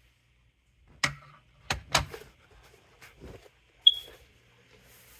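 Three sharp clicks from handling a smoke alarm, then a single short, high-pitched beep from its sounder about four seconds in.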